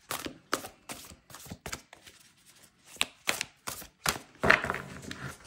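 A deck of oracle cards being shuffled by hand: a string of short, irregular flicks and slaps of card stock, a few a second, with a brief lull about two seconds in.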